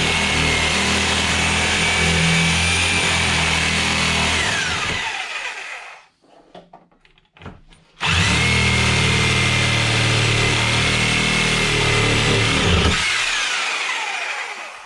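Reciprocating saw cutting through the old rusted steering shaft in two runs of about five seconds each, with a short pause between them. At the end of each run the saw motor winds down with a falling whine.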